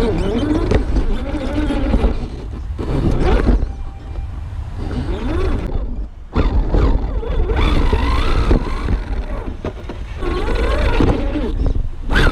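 Wind buffeting the microphone in a heavy low rumble, with indistinct voices talking under it.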